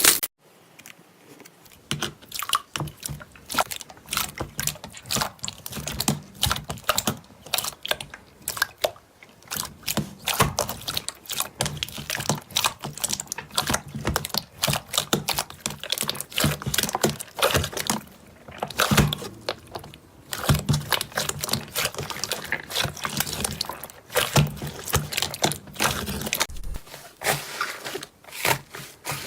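Slime being squished, pressed and stretched by hand, giving a dense, irregular run of sticky clicks and small pops.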